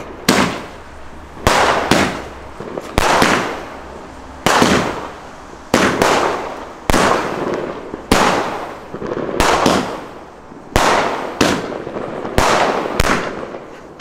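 Aerial fireworks bursting overhead: a run of loud bangs, roughly one a second. Each bang trails off over about a second.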